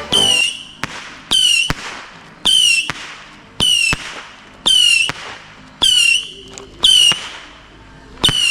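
Aerial firework cake firing whistling shots in quick succession. Each shot lets out a short high whistle that drops slightly in pitch, about one a second, with sharp bangs and pops between them.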